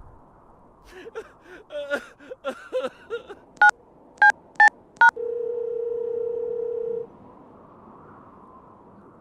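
Telephone keypad sounds: a string of short garbled chirps, then four short two-pitch keypad beeps, then a steady single tone held for about two seconds.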